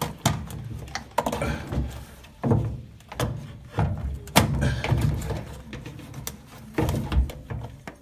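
A rubber drain hose being twisted and pulled off the plastic drain pump's outlet of a washing machine by hand: scattered clicks, knocks and rubbing thuds of plastic and rubber, the loudest knock about halfway through.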